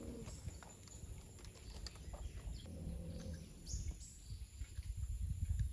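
Rainforest ambience by a river: a steady high insect drone with a few faint bird calls. A low rumble, like wind on the microphone, grows louder near the end.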